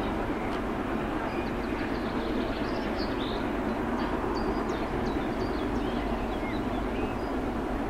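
Steam-hauled passenger train with locomotive 97 501 heard from far off as a steady rumble, with no separate exhaust beats standing out. Birds chirp briefly and repeatedly above it.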